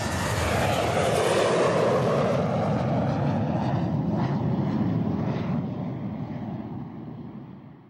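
Jet airplane passing overhead: a wide rushing roar, loudest in the first couple of seconds, that slowly fades away near the end.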